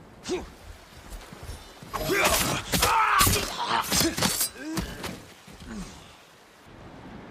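Katana sword combat sound effects: a single blade swish about a third of a second in, then a rapid flurry of swishes and sharp clashing strikes from about two seconds in, thinning out to a last few strokes near six seconds.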